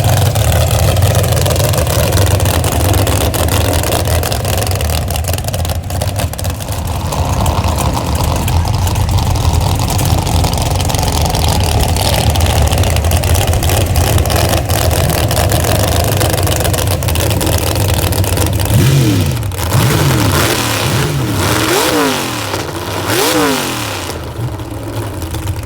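Mud drag race vehicle's engine running loud and hard under heavy throttle. Near the end it revs up and down several times in quick succession.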